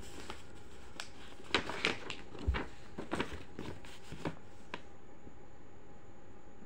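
Folded paper leaflet rustling and crinkling as it is unfolded and handled, in a string of short crackles with a soft thump about two and a half seconds in; the rustling stops about five seconds in.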